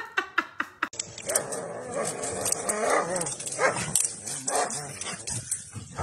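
Golden retriever puppy yipping at play, a quick series of short high barks about five a second, stopping about a second in. After that comes a noisier stretch with scattered dog barks and whines.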